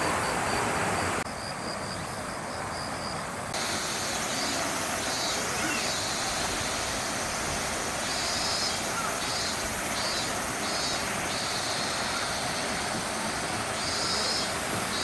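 Outdoor ambience: a steady wash of background noise with insect calls pulsing over it, about one to two bursts a second in high, shrill bands. The level dips for a couple of seconds early on, then returns.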